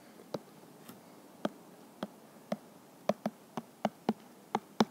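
Stylus tapping and clicking on an iPad's glass screen while writing by hand: a dozen or so short, sharp taps at irregular spacing.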